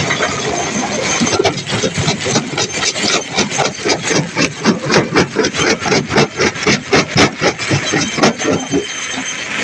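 Heavy machinery running, with a fast, regular pounding of about four to five knocks a second. The pounding starts about a second and a half in and stops near the end.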